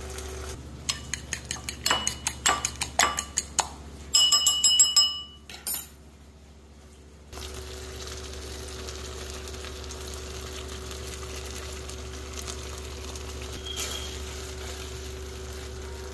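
A fork beating eggs in a bowl: a quick run of ringing clinks for about five seconds, the last few louder. After a short lull, a steady hum and soft sizzle of the sardine sauce simmering in the frying pan, with a faint clink of a utensil against the pan near the end.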